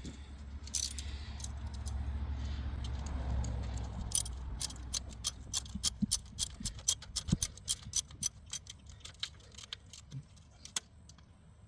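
Ratcheting socket tool clicking in a quick run of uneven strokes, several clicks a second, as a sensor bolt is tightened down. The clicks start about a third of the way in, after some dull handling noise, and stop shortly before the end.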